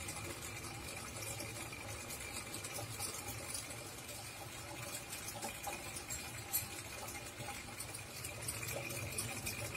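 Running planted aquarium: steady water noise with a low hum underneath.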